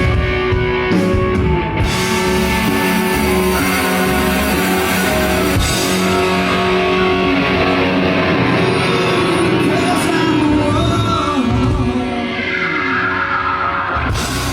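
Rock band playing live, with electric guitar, drum kit and a singer.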